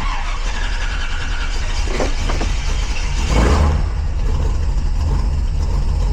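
1957 Chevrolet Bel Air engine idling steadily, with a brief swell in level a little past three seconds in.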